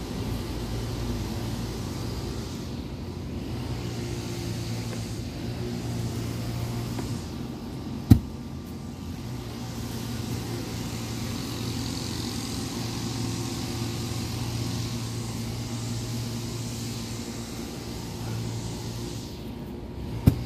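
A motor running steadily with a low, even hum, with two sharp knocks, one about eight seconds in and one at the very end.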